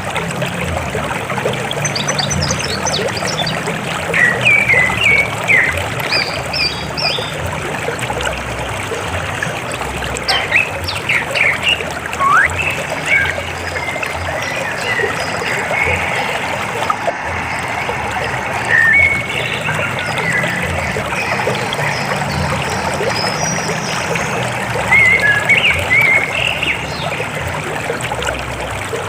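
River water flowing steadily, with birds chirping in short bursts on and off over the rushing water.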